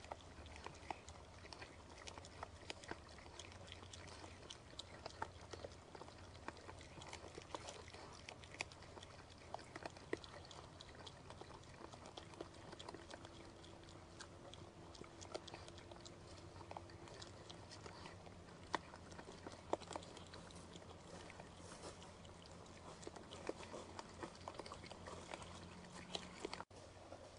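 Faint trail-camera night recording: a low steady hum with scattered soft ticks and rustles, as of a deer stepping in dry leaves, and the sound cuts out briefly near the end.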